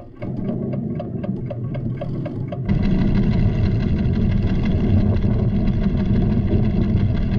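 Deep rumbling of a volcanic tremor, with an instrument ticking at about four ticks a second over it. About two and a half seconds in, the ticking stops and a louder, steady rumble takes over.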